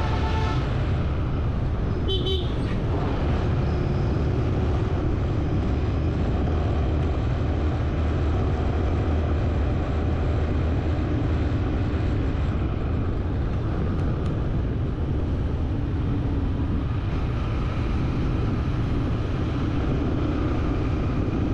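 Steady rumble of road traffic and a vehicle in motion. A horn toots right at the start and another short horn sounds about two seconds in.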